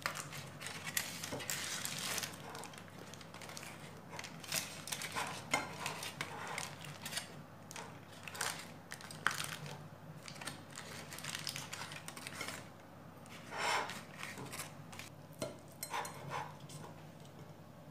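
Aluminium foil crinkling and rustling in irregular bursts as it is unwrapped by hand from a cooked meat roll, with a knife clinking against a ceramic plate near the end.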